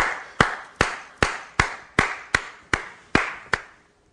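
A single pair of hands clapping in a slow, steady rhythm, about two and a half claps a second, with a reverberant tail after each clap. The claps stop a little before the end.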